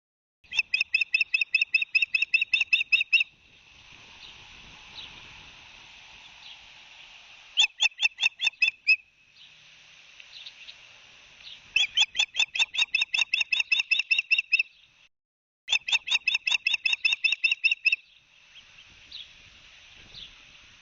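Ospreys calling: four bouts of rapid, high whistled chirps, about seven a second, each bout lasting one to three seconds. A faint steady hiss fills the gaps between bouts.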